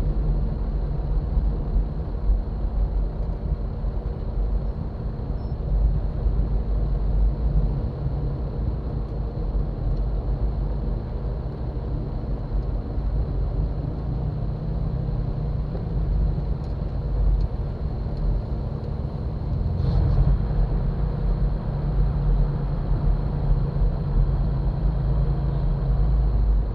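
Jeep Wrangler engine running at low trail speed, heard from a camera mounted on its hood, with tyres rolling over dirt: a steady low rumble. A short knock comes about twenty seconds in.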